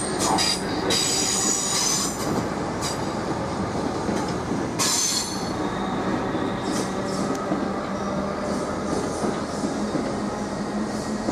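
South West Trains suburban electric multiple unit running along the station platform, with a steady rumble and high-pitched squeals near the start and again about five seconds in.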